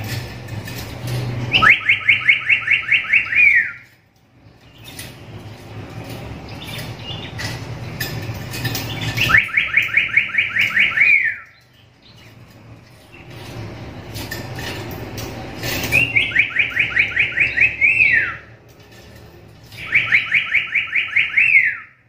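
Black-capped lory calling four times, each call a fast, loud run of about a dozen short repeated notes lasting about two seconds and ending in a downward-slurred note.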